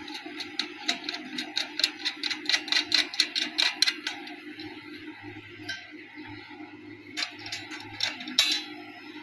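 Rapid metallic clicking, about six a second, as a nut is turned onto a bolt joining the galvanized steel angle pieces of a solar panel stand. The clicking stops about four seconds in, and a few scattered clicks follow as the joint is adjusted, the loudest near the end.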